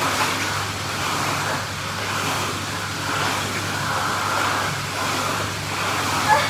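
Steady rushing of churning pool water, with a low steady hum underneath.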